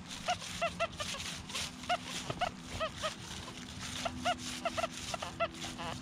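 XP Deus metal detector with HF coil giving short chirping target tones, each rising and falling in pitch, often in pairs and several a second, as the coil sweeps over a target it cannot pinpoint. A faint steady low hum runs underneath.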